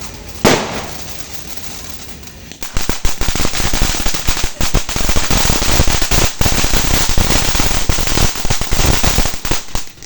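Mayon volcano fountain firework: one sharp crack about half a second in, then from about two and a half seconds the fountain erupts into dense, continuous crackling that runs until just before the end.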